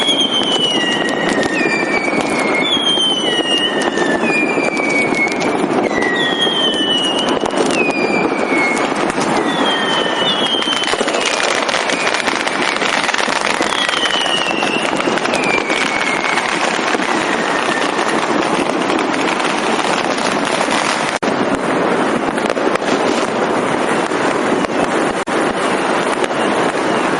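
Dense, continuous crackling and banging of many fireworks and firecrackers going off at once. Over the first two-thirds, whistling fireworks repeatedly cut through with short falling whistles, one after another; after that only the crackle goes on.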